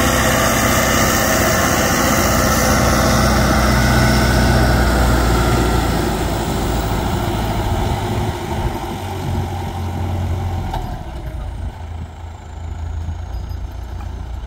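Belarus MTZ 1025.4 tractor's turbocharged diesel running through a straight-pipe exhaust while ploughing, a steady engine note. It grows quieter over the second half.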